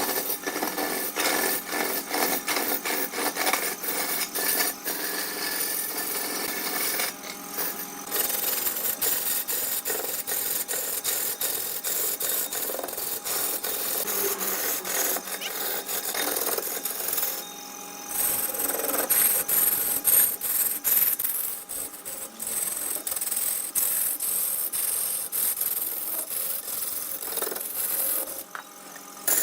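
Wood spinning on a lathe while a turning tool cuts and scrapes it: a dense rasping with many small ticks, breaking off briefly a few times.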